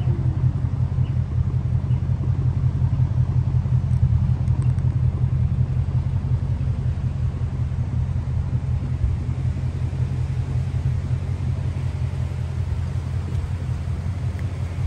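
2013 Ford Mustang GT's 5.0-litre V8 idling through a MagnaFlow aftermarket exhaust: a steady, deep low rumble that grows slightly quieter toward the end.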